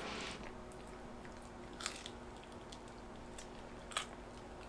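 Quiet, close-miked chewing of fried pizza crust, with two sharp crunches, about two and four seconds in.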